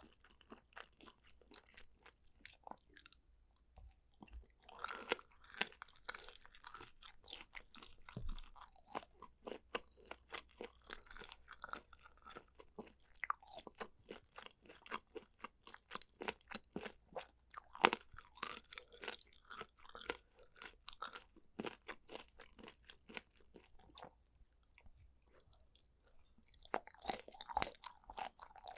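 A person chewing food close to the microphone: a rapid, irregular run of crisp crunches and chewing clicks, broken by two short pauses.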